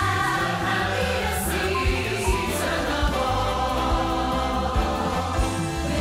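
Christmas choir music: a choir singing with an orchestral accompaniment over a steady bass pulse.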